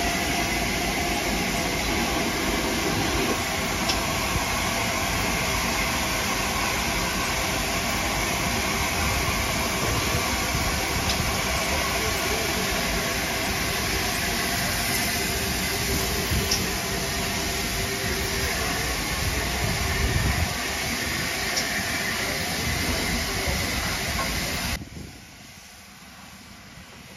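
Steam locomotive standing with a steady, loud hiss of steam. The sound drops away abruptly about three seconds before the end.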